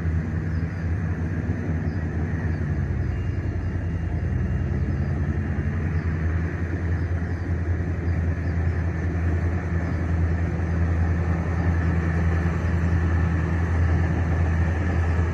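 Engine of a rice-harvesting machine running steadily with a low hum, its pitch dipping briefly a few seconds in and then recovering as if under load.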